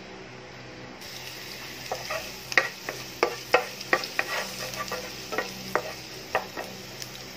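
Ginger strips sizzling in hot oil in a nonstick frying pan, the hiss picking up about a second in. From about two seconds in a wooden spatula stirs them, knocking and scraping sharply against the pan many times.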